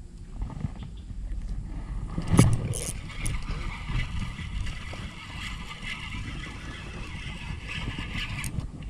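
Spinning fishing reel being handled and cranked as a small lure is worked, with a sharp clack about two and a half seconds in, then scratchy reel and line noise, over a steady low rumble.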